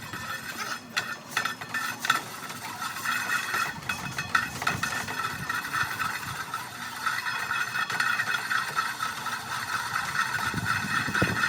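An engine running steadily with a rattle, with a few sharp clicks in the first two seconds or so.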